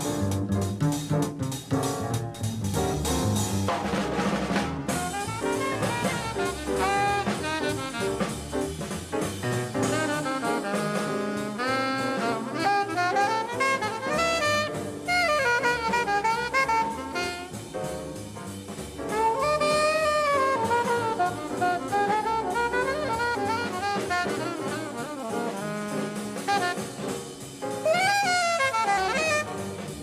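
Small jazz group playing: a saxophone solos in fast, winding melodic runs over the drum kit.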